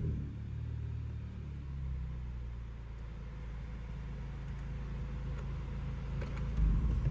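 2015 Honda Civic Si's 2.4-litre four-cylinder idling steadily with an exhaust silencer fitted, settled down after a dyno pull. A brief louder low surge comes near the end.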